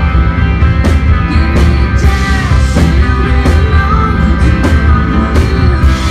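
A live rock band playing a song at full volume: drums keep a steady beat under heavy bass and electric guitars.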